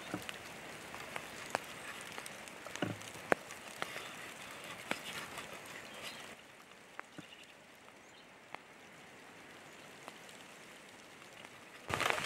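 Light rain beginning to fall: a soft, even hiss with scattered sharp raindrop ticks. It turns fainter and duller about six seconds in, then grows louder again near the end.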